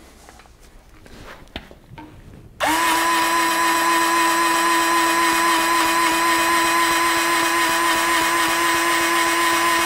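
Lube-Shuttle 18V electric grease gun's motor starts suddenly about two and a half seconds in and runs with a steady whine at an even pitch. The cartridge has run out of grease, so nothing is coming out of the coupler.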